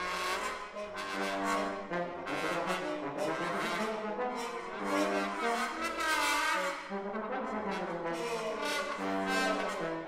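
Trombone quartet playing a contemporary piece: several trombones sounding shifting sustained chords and moving lines, with a pitch glide about six seconds in.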